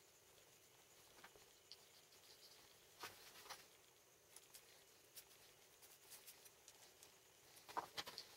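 Near silence with a few faint, light clicks and taps, scattered through and loudest in a short cluster near the end.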